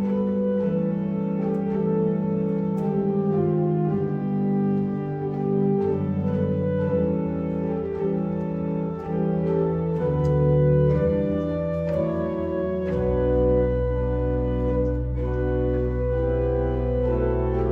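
Organ music: slow, sustained chords that change every second or so, with a deep bass note coming in about two-thirds of the way through and holding under the chords.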